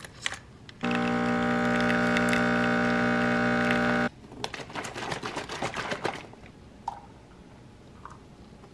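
An electric coffee machine's motor runs with a steady buzzing hum for about three seconds, starting about a second in, then stops. A couple of seconds of rapid light clicking and rattling follow.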